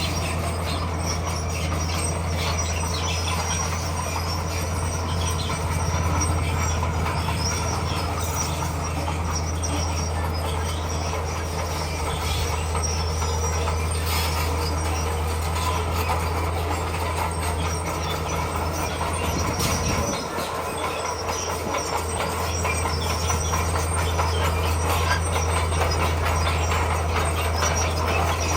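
Crawler bulldozer's diesel engine running steadily under load, with its steel tracks clanking and squealing as it pushes stone. The engine note drops briefly about twenty seconds in, then picks up again.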